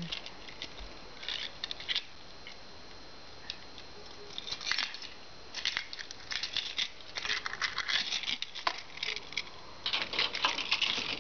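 Scattered clicks, rattles and scrapes of handling, sparse at first and busier from about halfway, as a hand works at the lock of a metal security screen door.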